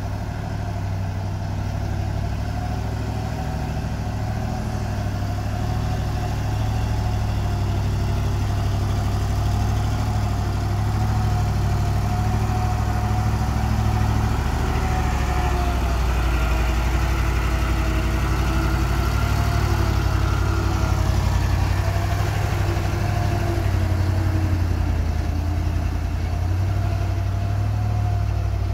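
Diesel engine of a loaded Nissan Diesel (UD) dump truck running steadily under load on a climb: a deep, even rumble with a thin, wavering whine above it. A second, higher whine joins for about ten seconds in the middle.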